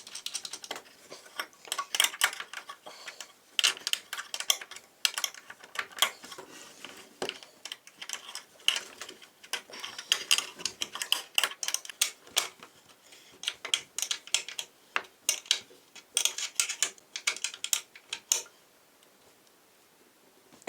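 Nuts on a wooden bed frame being tightened: quick runs of sharp clicks and light metal clinks, stopping near the end.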